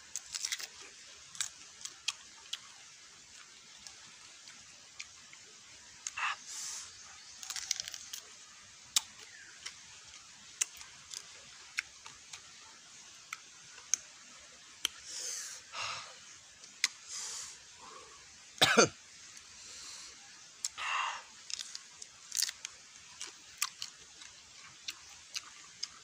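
A person eating sour catmon fruit: scattered wet mouth clicks and chewing, with short breathy bursts between bites and one louder cough-like burst about two-thirds of the way through.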